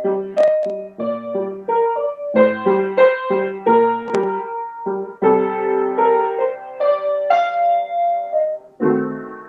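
Acoustic upright piano being played: a run of struck chords and melody notes, then a longer held chord, and a last chord struck near the end that rings and fades.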